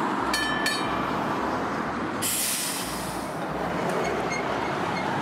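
Restored electric streetcar rolling slowly on curved track: a steady low rumble, two brief high-pitched tones near the start, and a short burst of hiss about two seconds in.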